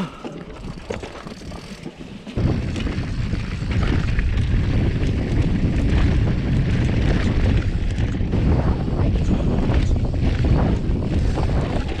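A mountain bike descending a rocky dirt trail: wind buffeting the camera microphone in a low rumble, with tyres crunching over rock and quick knocks and rattles from the bike. The rumble jumps louder a little over two seconds in and stays up.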